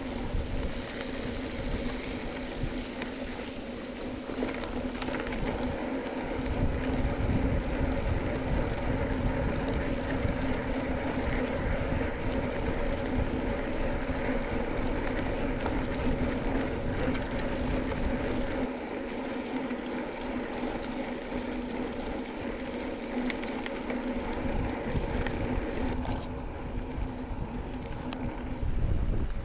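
Mountain bike riding at a steady speed over a hard-packed dirt road: tyre and road noise with a steady hum, and wind rumbling on the microphone.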